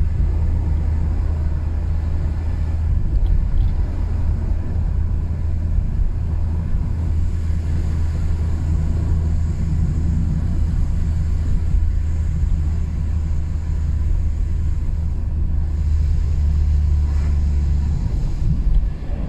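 BMW E36 under way, heard from inside the cabin: a steady deep drone of engine and road noise that shifts near the end.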